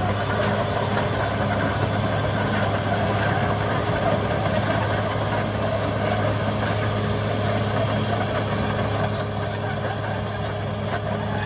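Caterpillar D6R XL bulldozer's diesel engine running steadily under work, a constant low drone, with scattered short high squeaks over it.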